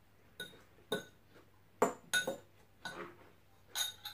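A metal fork clinking against a ceramic bowl while taking salad from it: about six sharp clinks spread irregularly, each ringing briefly.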